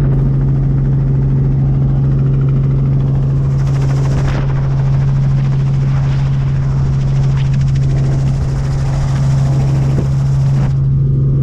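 Small helicopter in flight with its doors open: a steady, loud low drone from the rotor and engine, under rushing wind noise from the airflow over the camera.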